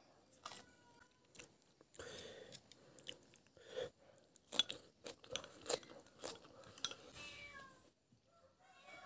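Eating at a meal: chopsticks clicking against a porcelain rice bowl and chewing, in a string of sharp taps that are loudest in the middle. A few short animal calls glide down in pitch near the start and near the end.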